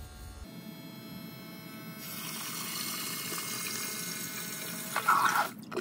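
Wayne ESP25 12-volt battery backup sump pump switching on about half a second in, as the rising water lifts its float switch. It then runs, with water rushing and splashing in the pit from about two seconds on, which shows the float-switch setup works with the main pump unplugged. A short, louder sound comes near the end.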